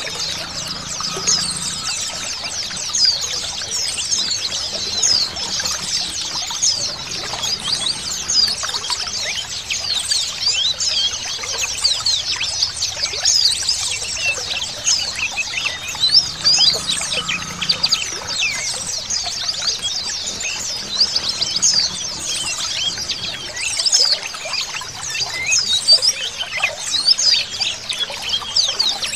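A flock of many white-eyes (pleci) chirping together in a dense, continuous chorus of short, high twittering notes. This is an 'ombyokan' recording, played to caged pleci to set them singing.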